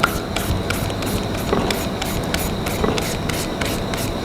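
Green papaya being shredded on a hand shredder, in even rasping strokes of about three a second.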